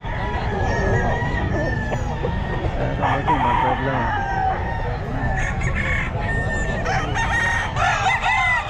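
Several gamecocks crowing, their calls overlapping one after another, over a steady low background din. The crows come thicker and louder near the end.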